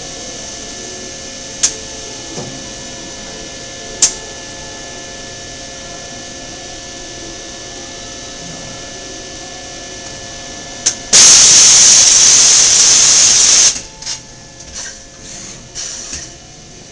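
Cincinnati-Milacron Arrow 750 CNC vertical machining center doing a dry tool change with an empty spindle. The machine hums steadily, with a few sharp clicks. About eleven seconds in there is a loud rush of compressed air lasting about two and a half seconds, followed by a series of clanks and clicks from the tool changer.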